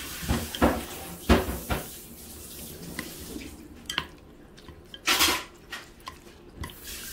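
Chopsticks stirring saucy black-bean instant noodles (Jjapaghetti) in a stainless steel pot: sharp clicks and knocks of the chopsticks against the metal, several in the first two seconds, with wet noodle sounds and a short rushing noise about five seconds in.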